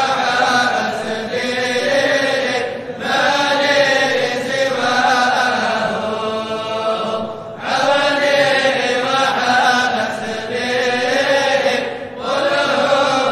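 Sufi qasida chanted in Arabic, sung in long held phrases with brief breaks about every four to five seconds.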